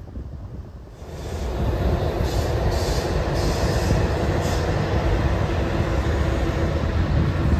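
A train on the rails: a dense wheel-and-rail rumble rises sharply about a second in and holds steady, with a few short high-pitched wheel squeals over it.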